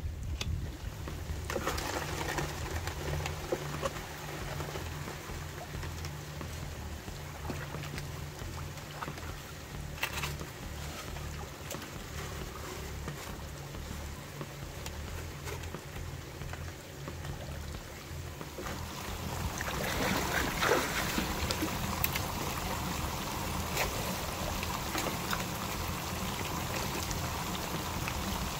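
A small water pump running with a steady low hum, water pouring and trickling through the prospecting equipment; the water sound grows louder about two-thirds of the way through.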